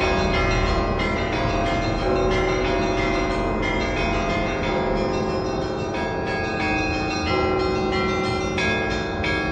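Church bells of St. Isaac's Cathedral pealing in the Russian Orthodox manner, many bells struck in quick, continuous succession with their tones overlapping: the call to the evening service.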